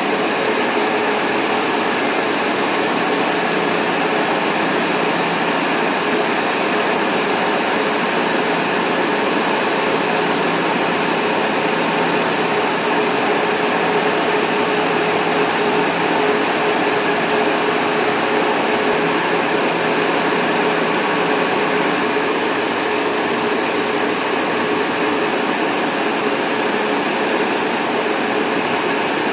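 Machine-shop machinery running steadily: a continuous whir and hum with a steady mid-pitched tone.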